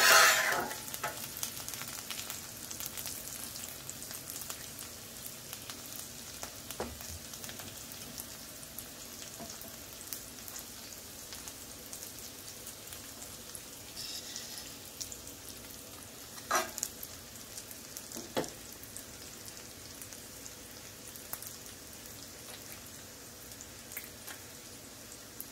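Bacon sizzling and crackling on a hot flat-top griddle, loudest in a burst at the start, with a few sharp clicks of metal tongs against the bacon and griddle plate.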